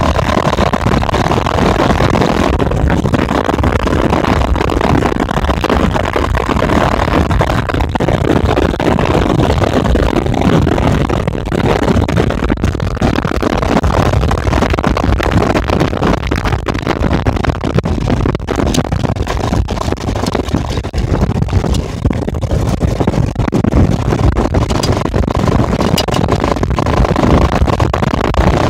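Wind buffeting the microphone and tyres rolling over a gravel road while towing a kayak on a wheeled cart, a steady rough rumble with scattered small clicks and rattles.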